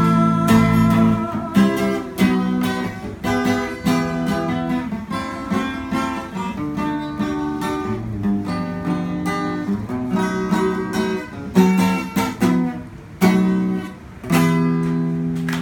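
Morris acoustic guitar strummed in chords, the strums ringing on as the chords change.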